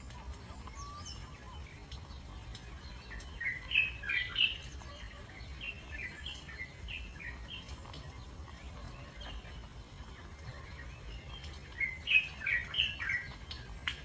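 Spotted dove chicks giving short, high begging chirps while the parent feeds them. The chirps come in two quick runs, about four seconds in and again near twelve seconds, with a few fainter ones between.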